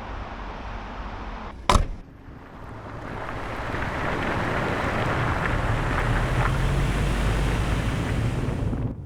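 A single sharp bang about two seconds in, then a rush of noise with a low rumble underneath that swells up and holds before cutting off abruptly near the end.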